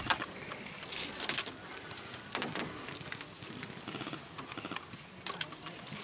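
Intermittent rustling and clicking, with short crisp bursts about one second in, near two and a half seconds, and again a little after five seconds.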